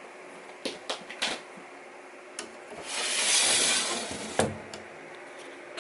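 A spray hissing for about a second and a half as fine liquid droplets land on the front glass of a snake enclosure, with a few sharp clicks before it and a single knock just after.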